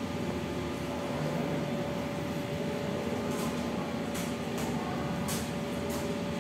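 Steady room noise with a constant hum. In the second half come about five short crinkles of a clear plastic evidence bag being handled.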